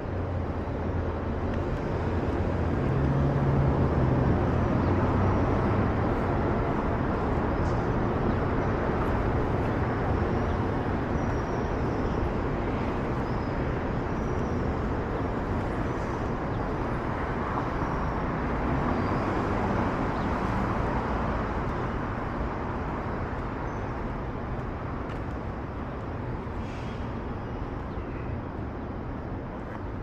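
Downtown street ambience: a steady hum of road traffic, with a vehicle engine's low rumble louder over the first several seconds, then easing.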